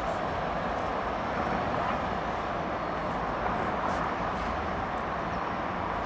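Steady rushing noise of an airliner's jet engines.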